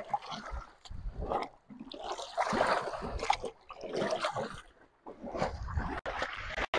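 Irregular splashing and sloshing of shallow water and mud as people wade and grope with their hands in a drained muddy pond.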